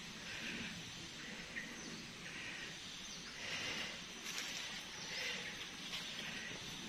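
Faint outdoor ambience with short, high bird calls recurring about once a second.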